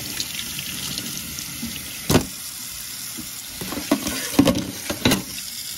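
Kitchen tap running over a silicone lick mat into a stainless steel sink as the mat is rinsed clean of food, with a few sharp knocks, the loudest about two seconds in.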